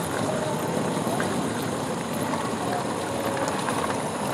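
Steady street noise with the hum of running vehicle engines.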